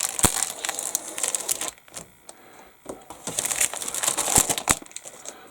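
Plastic packaging crinkling as a plastic model-kit sprue is handled, with a few sharp clicks; it goes quiet for a second or so in the middle, then picks up again.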